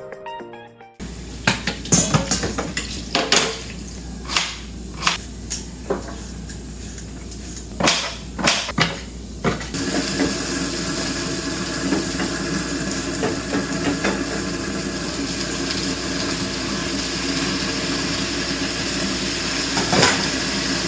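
Spatula clacking and scraping against a frying pan, a string of sharp knocks; about ten seconds in, a steady sizzle starts as vegetables fry in the pan, with one more clack near the end.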